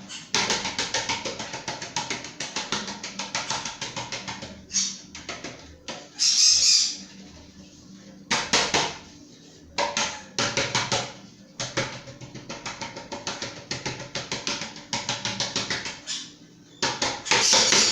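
Rapid rhythmic rubbing and scraping inside a metal cake pan as it is greased, in bursts of a few seconds with short pauses, with a couple of brief hissing sweeps.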